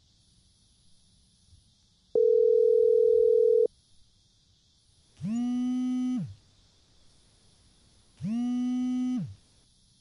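A mobile phone vibrating for an incoming call: buzzing pulses about a second long, twice, about three seconds apart, each rising in pitch as it starts and dropping as it stops. Before them, a louder, steady electronic beep for about a second and a half.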